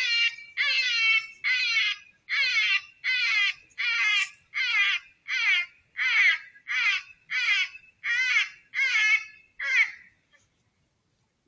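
A repeated animal cry: about fourteen short calls, each falling in pitch, at about one and a half a second. It stops about ten seconds in.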